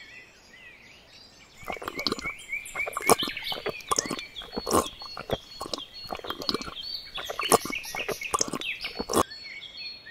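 Birds chirping, with an irregular run of sharp clicks or taps from about two seconds in until about nine seconds.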